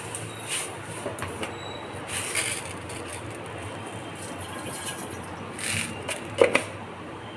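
Gas stove burner hissing steadily under a steel pot of milk being heated, with a few short clicks and knocks, the loudest near the end.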